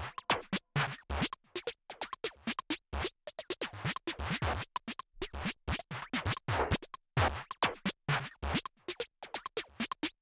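Foil wrapper of a Pokémon trading card booster pack crinkling and tearing as it is opened by hand, in many short, irregular crackles.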